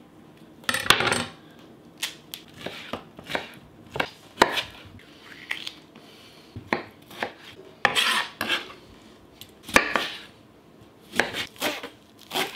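Chef's knife cutting fruit and chopping cilantro on a plastic cutting board: irregular knocks of the blade on the board, with short scrapes and handling noises between.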